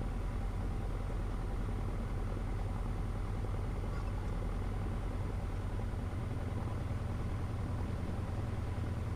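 Cessna 150's Continental O-200 four-cylinder engine idling steadily, a low even drone.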